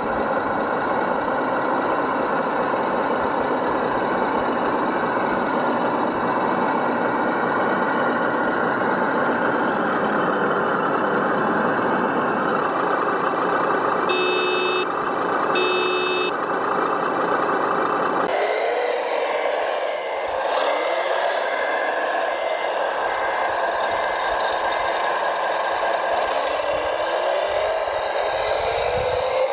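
Radio-controlled construction machines running with a steady engine sound. Two reversing beeps come a little past halfway; then the sound changes abruptly, and several rising whines come and go as the machines speed up.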